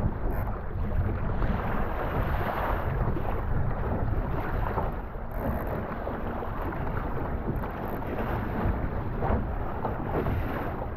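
Wind buffeting the microphone over a steady rush of water.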